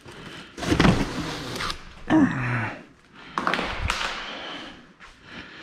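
Packing materials being handled while parts are taken out of the box: plastic wrap crinkling and foam and cardboard rubbing, in three bursts with a few light knocks.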